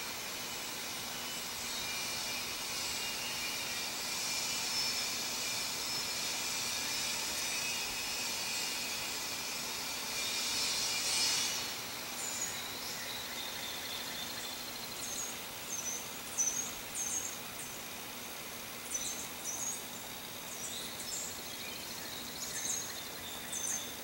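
Outdoor nature ambience: a dense, steady chorus of buzzing, trilling insects swells and then stops about halfway through. After it come short, high bird chirps, each falling in pitch and mostly in pairs, over a fainter insect trill.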